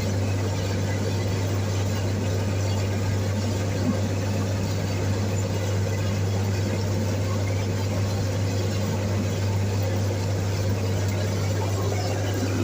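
International TD15 crawler bulldozer's diesel engine running steadily, a constant low drone that holds the same pitch and level throughout.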